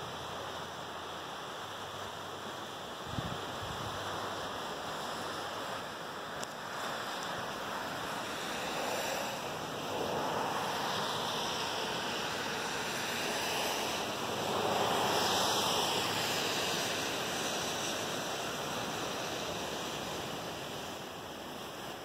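Ocean surf washing against rocks along the shore: a steady rush of water that swells louder twice, about halfway through and again, most strongly, about two-thirds of the way in.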